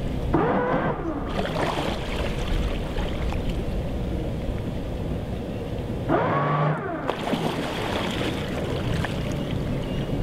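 Steady low rumble of a motor yacht's engines at slow docking speed. Twice, about a second in and again about six seconds in, a whine that rises and falls lasts about a second: a thruster kicked on briefly by remote control to steer the bow.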